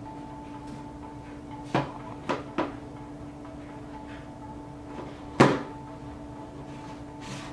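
Three sharp knocks, then a louder fourth about five and a half seconds in, as a smartphone is handled and set down on a wooden tabletop, over a steady hum.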